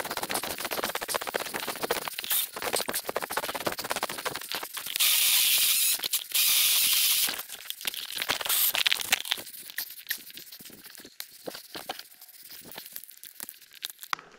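Crunching and rustling through snow and brush, then two loud bursts of a cordless pole saw's chain cutting overhead branches, the first about a second long and the second a little longer, about five seconds in. Quieter scraping and clicks from handling the saw follow.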